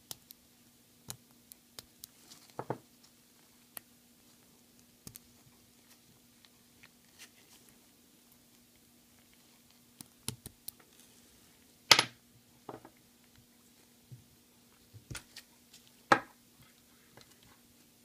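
Sporadic small metallic clicks and taps from a wristwatch's spring bar and case being worked by hand, mostly faint, with two sharper clicks about twelve and sixteen seconds in.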